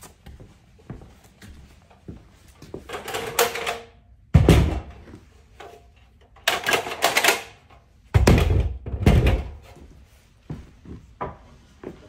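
BORA Speedhorse folding sawhorses being set up: clacks and clicks as the quick-release legs swing out and lock, and heavy thuds as the sawhorses are set down on a concrete floor. The noise comes in several loud bursts with quieter clicking between them.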